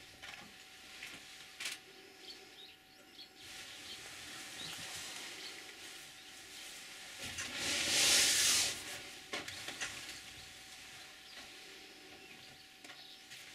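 A single hissing noise about seven seconds in, lasting about a second and a half, over a faint outdoor background with a few light clicks.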